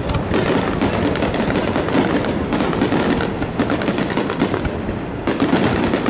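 Fireworks display: many aerial shells bursting in quick succession, a dense, unbroken run of bangs with no pause.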